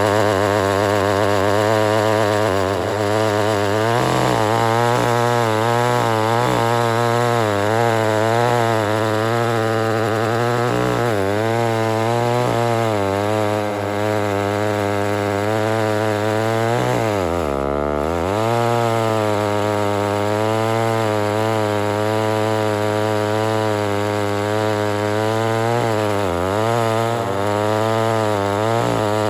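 Homelite Super XL-923 82cc two-stroke chainsaw, stock and not yet ported, running hard with a 28-inch bar and cutting wood. Its engine pitch wavers constantly under the load, with a deeper drop in speed about 17 seconds in.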